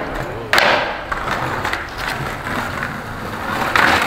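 Skateboard wheels rolling over rough street asphalt, with a sudden loud hit of the board about half a second in and another near the end.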